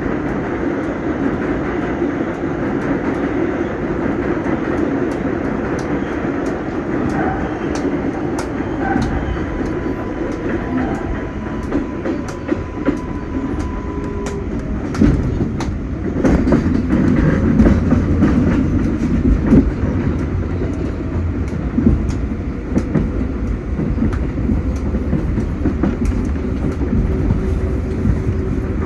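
R188 subway train running between stations, heard from aboard: a steady rumble of wheels on rail with frequent clicks over rail joints. A faint steady whine comes in between about ten and fourteen seconds in, and the rumble grows louder soon after.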